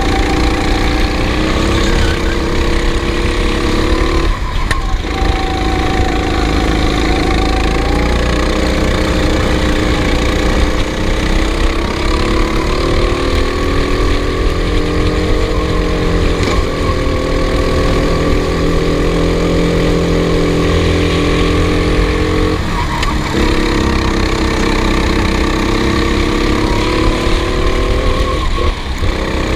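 Racing vehicle's engine running hard at high revs, its pitch slowly climbing and sagging, dropping out briefly three times, over a constant low rumble.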